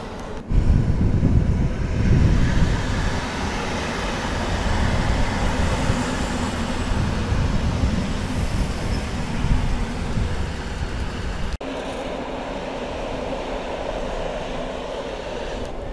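Train running on rails, a heavy low rumble that jumps up suddenly about half a second in and drops abruptly to a lighter running noise about three-quarters of the way through.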